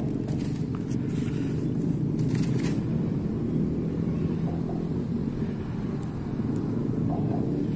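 Steady low outdoor rumble with a faint steady hum, and a few light ticks about two seconds in.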